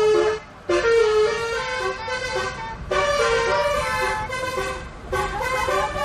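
Basuri-type 'telolet' bus air horn playing a tune of stepping notes, in phrases broken by short pauses.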